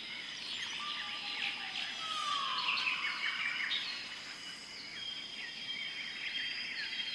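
Many birds chirping and calling at once, with dense short chirps and trills, one clear falling whistle about two seconds in, and a steady high ringing tone running under the second half.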